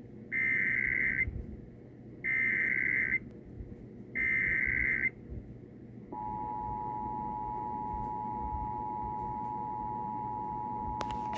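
Emergency Alert System test tones: three short SAME header data bursts, each just under a second and about two seconds apart, then from about six seconds in the steady two-tone EAS attention signal.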